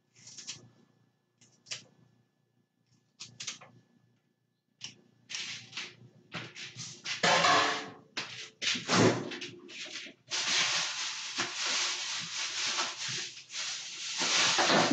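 Kitchen handling sounds: scattered short rustles and knocks, growing busier about five seconds in, then a steady hiss from about ten seconds on.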